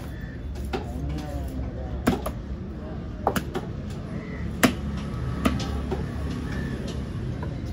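Knife chopping through a mahi mahi on a cutting board: about five sharp, irregular strikes over a couple of seconds' spacing, with background market chatter.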